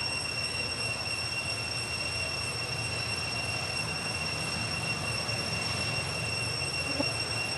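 Steady high-pitched droning of insects over a low rumble, with one faint short chirp about seven seconds in.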